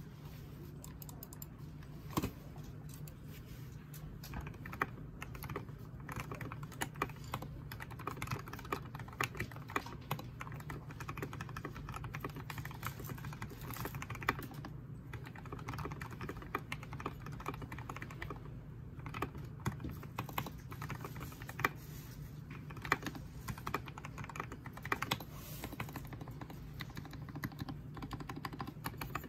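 EO87 mechanical keyboard being typed on: a continuous, fast stream of keystrokes from switches fitted with SPRiT Complex 78c springs, mounted on a copper plate with a soft white silicone foam layer. A few keystrokes stand out louder than the rest.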